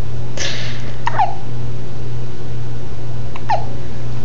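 A baby hiccuping twice, a bit over two seconds apart; each hiccup is short and drops sharply in pitch. A steady low hum runs underneath.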